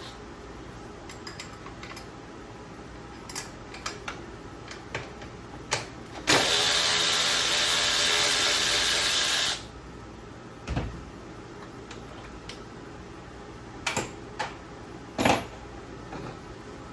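A handheld power tool runs at speed for about three seconds, spinning up at the start and stopping sharply, with scattered clicks and knocks of hand tools and parts before and after it.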